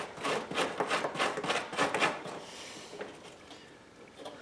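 A small brush scrubbing a rusty metal chain in quick back-and-forth strokes, about four a second, stopping about halfway through.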